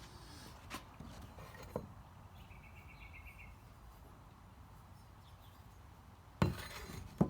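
Two loud knocks near the end, like something hard being set down or bumped, after a few faint clicks and a short faint chirping trill about two and a half seconds in.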